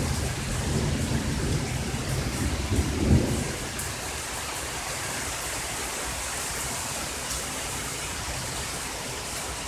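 Heavy rain falling steadily, with rumbling thunder over the first three seconds or so. The thunder peaks just after three seconds, then dies away and leaves only the rain hiss.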